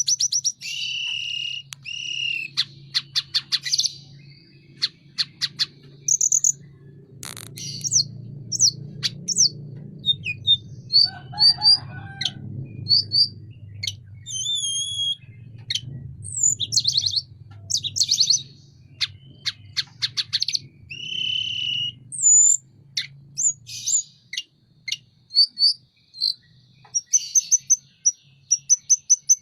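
Tledekan gunung songbird singing vigorously: a varied run of sharp chirps, fast clicking trills and short whistled notes, over a faint low hum.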